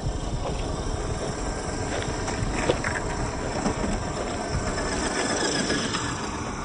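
Scale RC crawler truck driving over rough ground: a steady crunching, scraping clatter from the tyres and drivetrain, with scattered clicks and one sharper click about two and a half seconds in.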